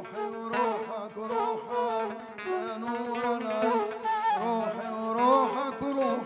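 Egyptian Sufi devotional song (inshad): a male singer's melismatic line, sliding between notes, over oud and a small traditional ensemble.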